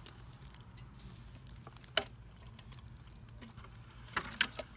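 Scattered light clicks and taps from handling, over a faint low hum: one sharp click about two seconds in and a quick cluster of clicks near the end.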